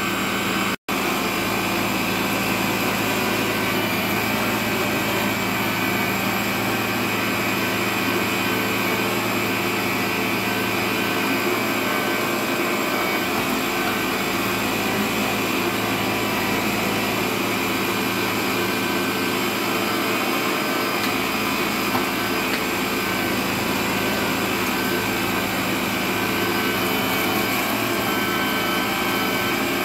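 Electric stand mixer with a meat-grinder attachment running steadily while mincing meat through the grinder plate. It cuts out for an instant about a second in.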